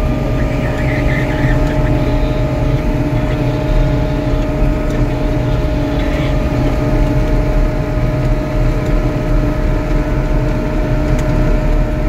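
White 2-145 tractor's diesel engine running steadily under a loaded corn wagon going downhill on a gravel road, heard from inside the cab: a continuous low rumble with a steady whine above it.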